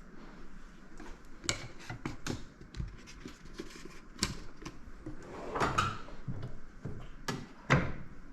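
Fork parts and hand tools being handled on a workbench: a string of clicks and knocks, with a short scrape a little past halfway and the loudest knocks near the end.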